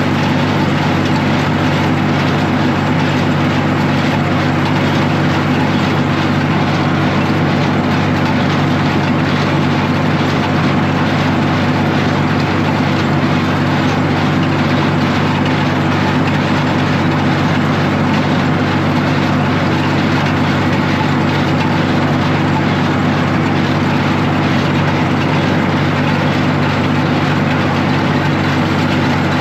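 Tractor engine running steadily at a constant speed, a loud unbroken drone with no change in pitch or level.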